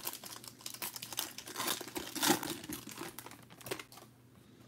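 Foil wrapper of a Prizm basketball card pack crinkling and crackling as it is torn open by hand. The crinkling is loudest about two seconds in and dies away near the end.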